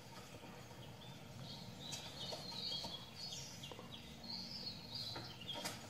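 Songbirds chirping in woodland: runs of short high notes starting about a second in, over a faint outdoor background, with a sharp click near the end.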